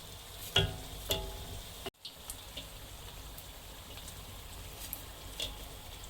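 Spring rolls deep-frying in hot oil: a steady sizzle with small pops and crackles. Two brief, sharper sounds come about half a second and a second in.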